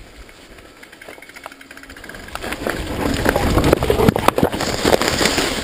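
Mountain bike riding fast down a rough dirt trail: a dense, loud rattle and clatter of the bike and its tyres over the ground, starting about two seconds in.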